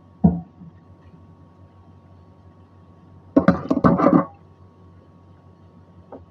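Stainless steel kitchenware knocking and clinking: one sharp knock just after the start, then a quick run of several clatters and clinks about three and a half seconds in, over a faint steady hum.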